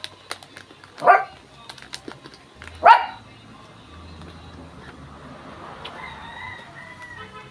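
A dog barking twice, two short loud barks about two seconds apart.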